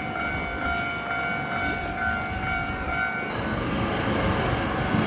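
Japanese level-crossing warning bell ringing steadily over the rumble of a passing train. About three seconds in, the bell cuts off and the louder rushing noise of the train takes over.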